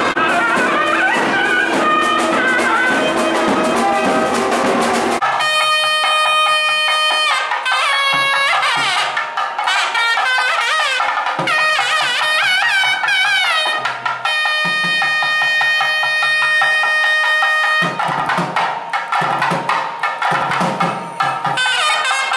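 Nadaswaram playing a gliding, ornamented melody with thavil drum strokes. About five seconds in, a dense, crowded mix gives way suddenly to a clear, close sound of the pipe.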